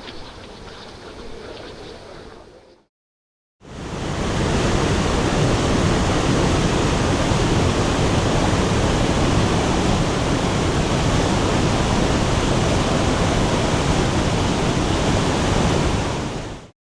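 Loud, steady rushing water from a mountain stream's waterfall or rapids. It starts after a quieter stretch and a brief gap of silence about three seconds in, and cuts off abruptly near the end.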